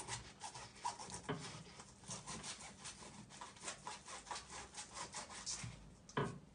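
Kitchen knife cutting fruit on a wooden cutting board: a quick, light run of cutting strokes, about three or four a second, with a louder knock of the knife on the board about a second in and again near the end.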